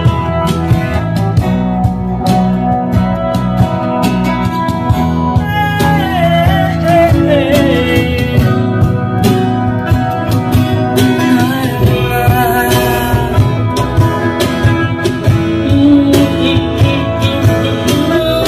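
Live band playing through large PA speakers: guitars with a singer's voice over a steady bass.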